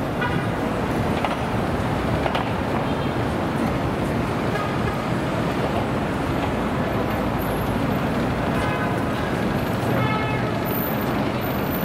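City street traffic: a steady rumble and hiss of vehicles going by, with a few brief pitched sounds over it near the start and again about nine and ten seconds in.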